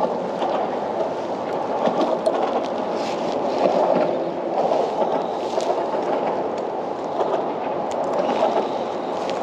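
Water sloshing and lapping against a plastic kayak hull, a steady rushing wash with a few faint clicks.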